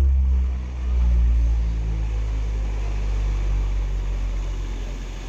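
Deep sub-bass from a stack of CLA-design subwoofer boxes: a low droning note left over at the end of the track, fading out slowly over several seconds.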